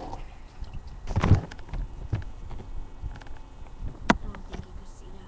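A few knocks and clicks from handling: one heavy knock about a second in, smaller taps after it, and a sharp click about four seconds in.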